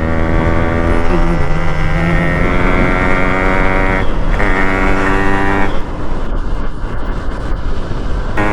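Yamaha RX-100's two-stroke single-cylinder engine running through a home-built exhaust, holding a steady note. The note breaks briefly about four seconds in, then turns rougher and weaker for a couple of seconds before coming back strong near the end.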